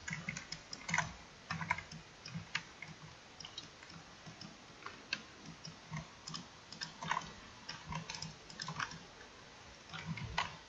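Faint, irregular clicks and taps of a computer keyboard and mouse as the 3D viewport is navigated.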